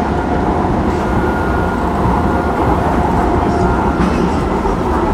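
Docklands Light Railway train running, heard from inside the carriage: a steady rumble with faint thin whining tones over it.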